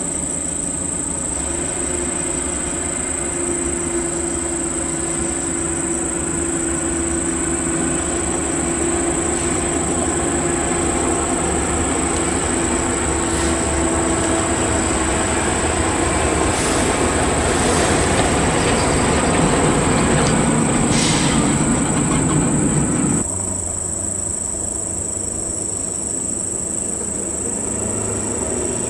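Heavy Volvo truck driving past on a gravel road, its engine and tyre noise growing louder toward about two-thirds through, over a steady high insect drone. About three-quarters through, the sound drops abruptly to quieter, more distant vehicle noise with the insects still going.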